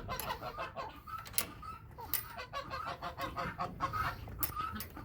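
Domestic geese honking, several birds giving short calls in quick succession.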